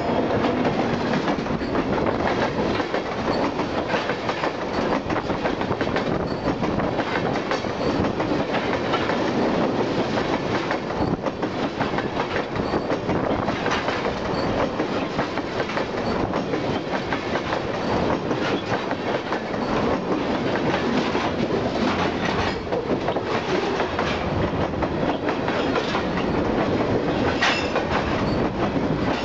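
Freight cars (tank cars and a covered hopper) rolling past at close range across a short timber railway bridge: a steady rumble of steel wheels on rail with a continuous clickety-clack of wheels over the rail joints, and a sharp click near the end.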